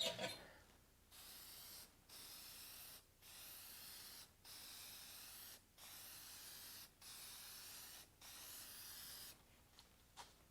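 Aerosol can of Meguiar's headlight clear coat spraying in eight short hisses of about a second each with brief pauses between, laying a wet coat onto a plastic headlight lens. A short, louder handling noise comes right at the start.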